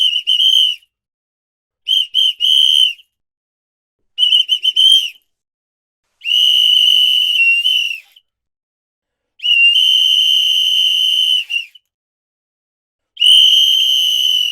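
A whistle blown in a series of blasts, each a single shrill high tone. First come three groups of short, quick blasts, then two long blasts held for about two seconds each, and a last blast begins near the end.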